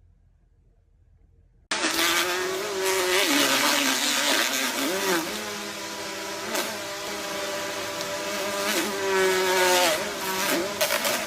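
Quadcopter drone's motors and propellers whining, starting suddenly about two seconds in, the pitch sliding up and down as it flies.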